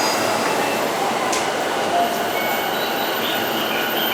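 Steady noise from a Keihin-Tohoku Line E233-series electric commuter train at a station platform. Faint thin high tones come in from about halfway through.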